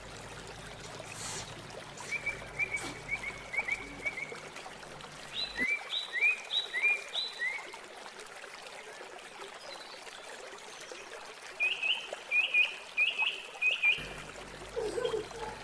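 Pot of fish soup at a full boil, bubbling steadily. Over it a bird gives three short runs of quick, repeated high chirps, about two, six and twelve seconds in; these are the loudest sounds.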